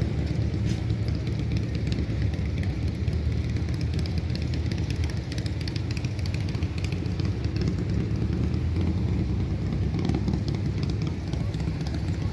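A car engine running steadily with a low, dense exhaust note.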